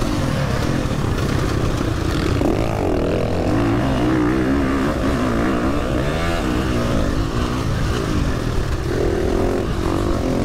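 Dirt bike engines revving, their pitch rising and falling again and again as the bikes accelerate and back off.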